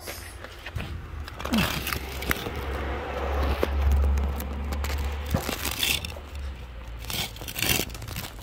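Handling noise on a phone's microphone: scraping and rubbing with a few sharp knocks, over a low rumble that swells around the middle.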